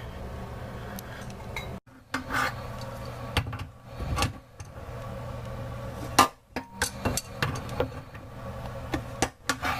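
Irregular metallic clicks and knocks of a tool on a water supply line fitting being tightened under a bathroom sink, with a low steady hum beneath.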